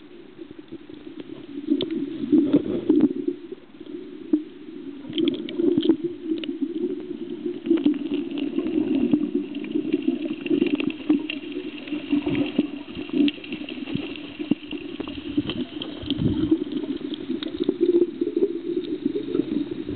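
Underwater sound: a steady muffled rumble with bubbling and many scattered clicks.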